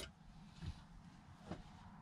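Near silence: room tone with a soft knock about two-thirds of a second in and a fainter click about a second and a half in.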